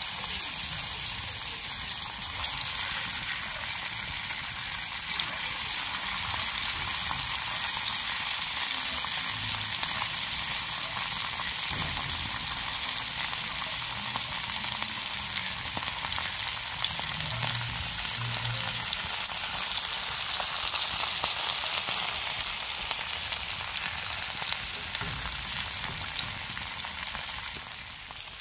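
Masala-coated whole fish shallow-frying in oil on a dosa griddle: a steady, dense sizzle.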